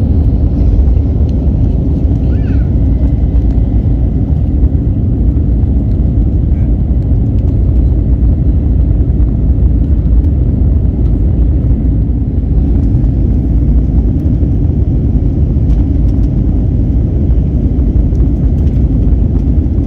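Steady, loud, low rumble of an Airbus A321neo's engines at climb thrust and the rushing air, heard inside the passenger cabin during the initial climb after takeoff.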